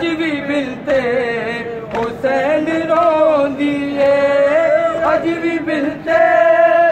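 Voices chanting a noha, a Shia mourning lament, unaccompanied, in long drawn-out wailing notes with short breaths between phrases.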